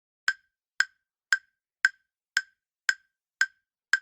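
Countdown timer sound effect: even, sharp ticks about two a second, eight in all, counting down the time to answer.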